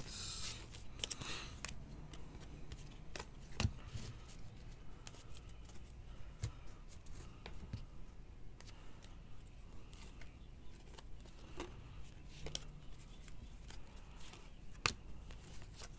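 Glossy trading cards handled and flipped through by hand: irregular light clicks and slides of cards against each other, a few sharper snaps among them.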